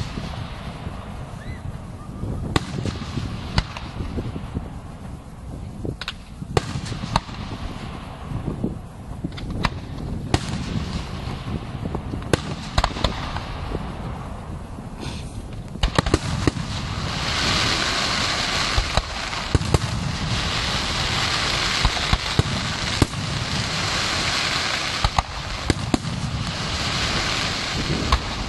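Fireworks display: aerial shells bursting in sharp, repeated bangs over a low rumble. About halfway through, a dense crackling hiss sets in and keeps going under the bangs.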